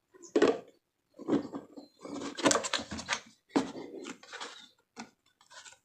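Irregular knocks, clicks and clatter of stand-fan parts being handled, in short bursts about a second apart.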